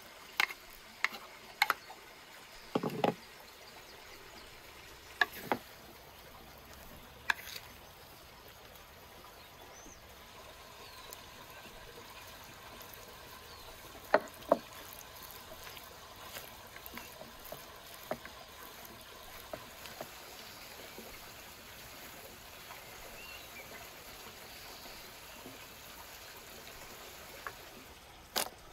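Steady trickle of a stream under a scatter of sharp wooden knocks and taps. Green peas are tipped into a wooden salad bowl in the first few seconds, and a wooden spoon mixes the salad, with two sharp knocks on the bowl about halfway.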